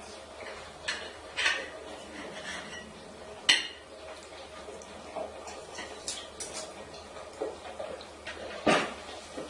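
A handful of sharp clinks and knocks, scattered and irregular, over a faint steady hum; the loudest comes about three and a half seconds in.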